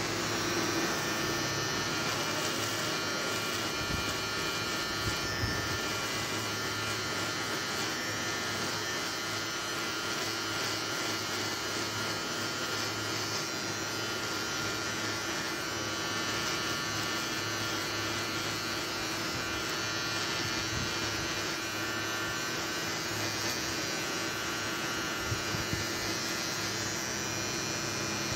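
Cordless electric beard trimmer running steadily as it trims a man's beard along the jaw and neck, a constant even hum with no stops.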